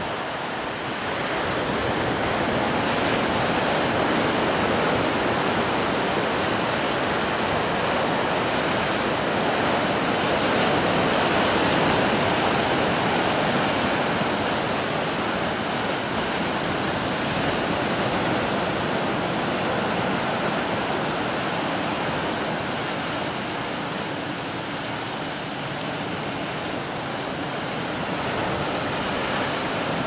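Sea surf breaking and washing over a rocky shore: a continuous rush of churning water that swells to its loudest a little before the middle, then eases.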